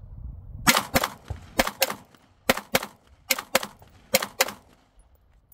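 Glock pistol fired in five quick pairs of shots, ten rounds in all, about a quarter second between the two shots of each pair and a little under a second between pairs: a doubles drill string.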